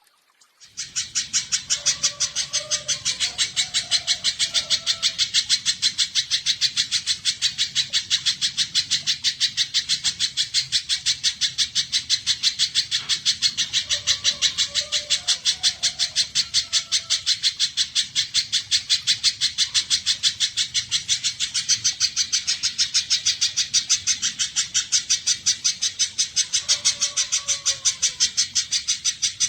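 Spiderhunter (pijantung) calling: an unbroken, fast, even run of sharp high chips, about four a second. Fainter, lower warbled notes come in three times.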